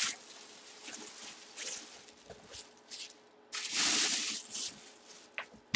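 Clear plastic bag crinkling as the full-size football helmet wrapped in it is handled. There are light rustles and taps, with one loud burst of crinkling about halfway through that lasts about a second.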